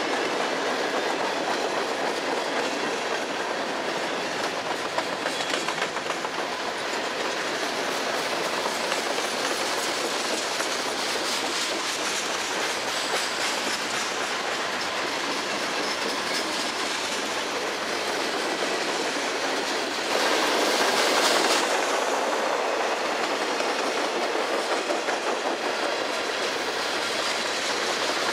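Freight cars of a long mixed train rolling past close by: the steady rumble and rattle of steel wheels on rail, growing louder about twenty seconds in, with a run of short wheel clacks over rail joints after that.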